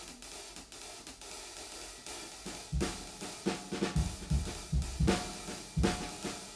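Intro music: a drum-kit beat with kick drum, snare and hi-hat comes in a little under three seconds in, over a quieter opening.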